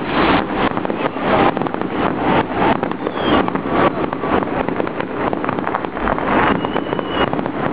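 Fireworks display: aerial shells bursting overhead in a rapid, irregular barrage of bangs and crackling, several a second.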